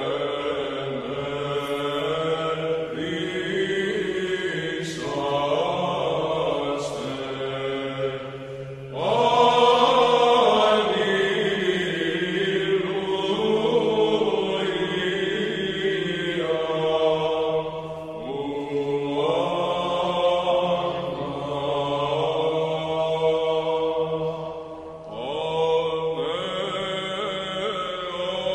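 Background music of slow vocal chanting in long phrases over a steady low held note.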